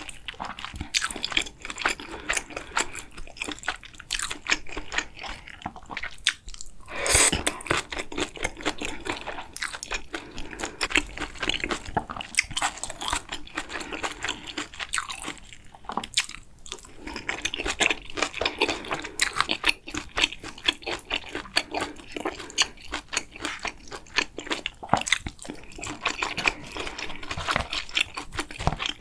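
Close-miked sounds of a person eating: steady chewing with dense crunching and wet mouth clicks, with a brief lull about six and a half seconds in.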